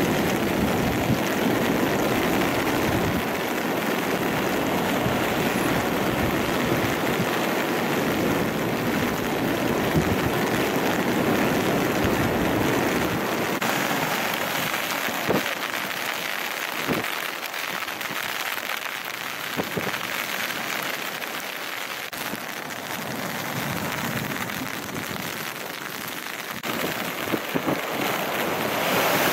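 Storm-driven surf: a steady rush of waves breaking. After a change about halfway through, waves crash and splash over a rock jetty, with a few sharper splashes.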